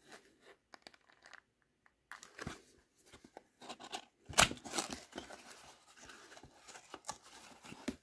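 Small cardboard carton handled and opened by cotton-gloved hands: scattered taps and rubbing, then scraping and crinkling as the tuck flap is worked loose and pulled open, loudest about four and a half seconds in.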